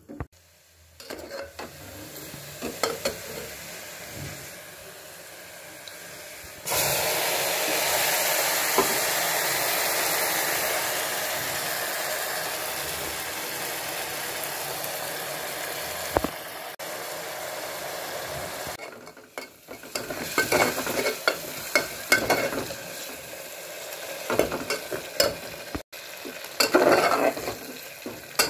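Hot oil sizzling in a pressure cooker pot. A faint crackle at first, then a sudden loud sizzle about a quarter of the way in as ingredients go into the oil, slowly dying down. In the last third a spoon stirs the masala, clinking and scraping against the metal pot over a quieter sizzle.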